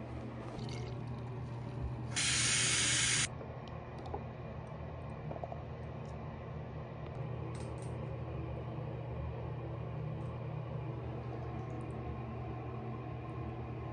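A single hiss of spray lasting about a second, starting about two seconds in, over a steady low hum, with a few faint clicks of small bottles being handled afterwards.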